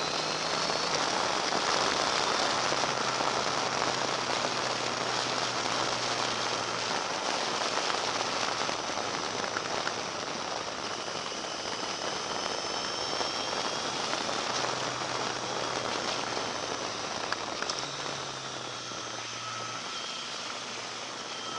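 Motorcycle riding at speed, heard from a leg-mounted action camera: loud, steady wind rush over the microphone, with the engine's whine faintly rising and falling underneath as the throttle changes through the bends.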